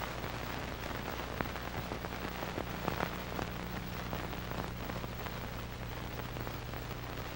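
Hiss and crackle of an old optical film soundtrack, with a steady low mains hum under it and scattered small clicks.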